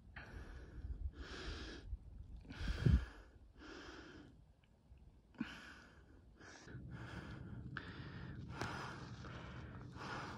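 A hiker breathing hard while climbing uphill, a short breath about every second. A low steady rumble comes in about two-thirds of the way through.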